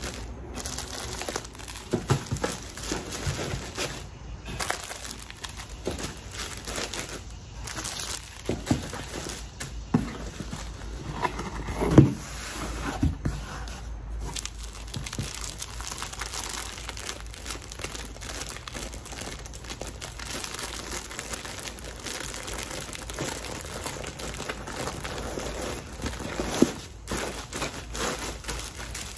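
Plastic packaging crinkling and rustling as it is handled and folded, with scattered taps and knocks; one louder thump about twelve seconds in.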